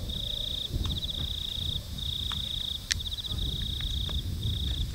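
Night insects calling in a steady, high-pitched trill, in long phrases broken by short gaps, over a low rumble, with a sharp click about three seconds in.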